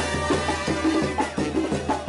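Upbeat music with a steady percussive beat, about four strokes a second, over pitched instrument lines.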